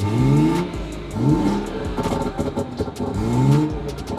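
BMW M140i's turbocharged straight-six engine being revved while parked, in repeated short blips about a second apart, each a quick rise in pitch falling back to idle.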